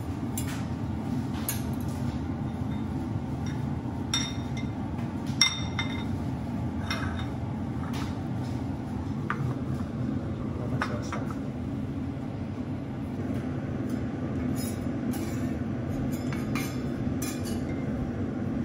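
Scattered metallic clicks and clinks of a metal spatula and utensils against a steel teppanyaki griddle and bowls, a couple of them ringing briefly, the loudest about five seconds in, over a steady low hum.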